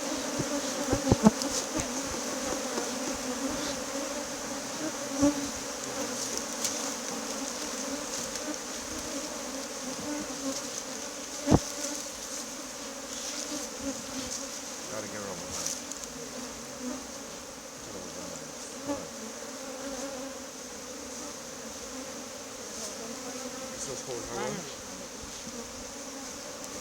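Many honey bees buzzing around an opened hive, a steady drone. A few sharp knocks cut through it, the loudest about a second in and near the middle.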